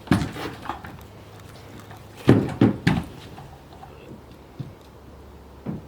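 A kayak being lifted and set onto a wheeled kayak trolley: a few knocks and thuds, with the loudest cluster about two seconds in and another knock near the end.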